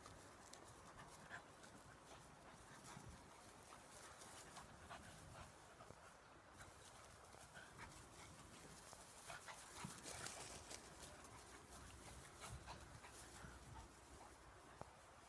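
Faint sounds of a beagle and a cocker spaniel at play: dog panting with many small rustles and ticks.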